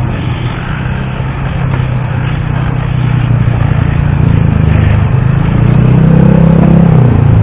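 Vehicle engine running, revving up about six seconds in and settling back near the end.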